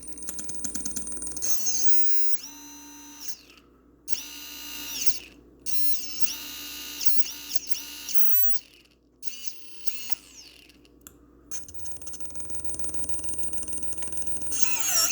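Brushless motors of a small combat robot whining in repeated bursts, their pitch rising and falling as they speed up and slow down. They are being run on a freshly fitted Afro ESC.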